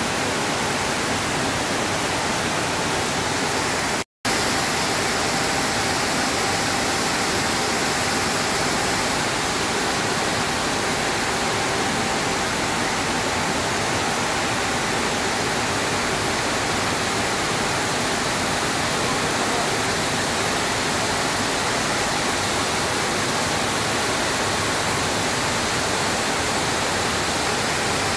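Steady, dense noise of a maize milling plant's machinery running, with a faint steady whine through it. The sound cuts out for an instant about four seconds in.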